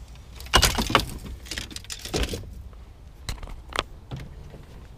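Fishing rods, a bag and tackle rattling and rustling as they are loaded into an SUV's cargo area, in two bursts in the first half, followed by a couple of sharp clicks.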